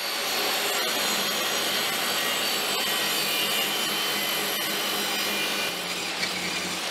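Table saw ripping an oak board: the blade and motor run loud and steady as the wood is fed through by hand, and the motor's hum drops slightly under load about six seconds in.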